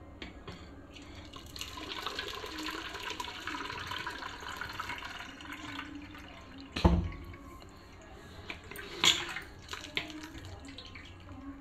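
Water pouring and splashing onto grated coconut in a plastic strainer, for the second, thin coconut-milk extraction. A sharp knock comes about seven seconds in, and a smaller one about two seconds later.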